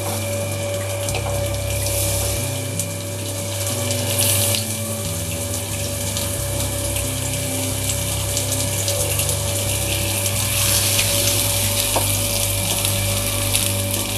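Rohu fish steaks shallow-frying in hot mustard oil: a steady sizzle with small crackles as the pieces are laid into the pan, over a steady low hum.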